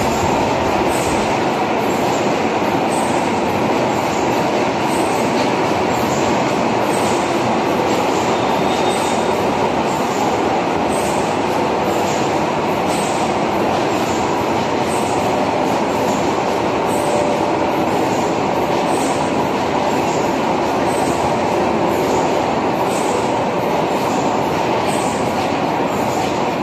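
HUAYU corrugated carton machine running in production: a steady, loud mechanical din, with a faint high tick repeating about once a second.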